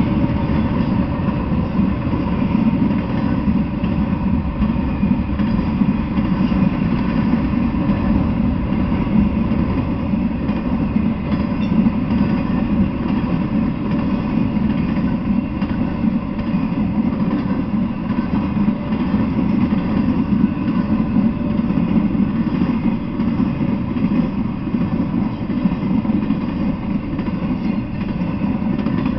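Intermodal freight train rolling past, its container-laden well cars making a steady low rumble on the rails.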